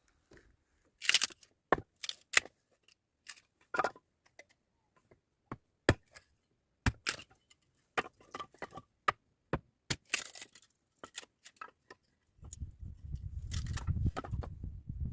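A run of sharp, irregular cracks and knocks, like hand work on wood or stone, with short gaps between them. About twelve seconds in, a low rumbling noise starts and continues.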